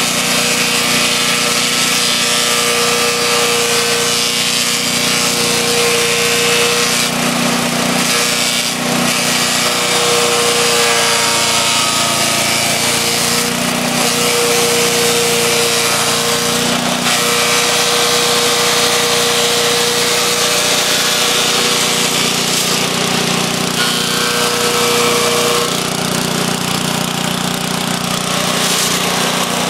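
Wood chipper running steadily at a constant loud level, its engine hum mixed with the harsh noise of wood going through the chipper.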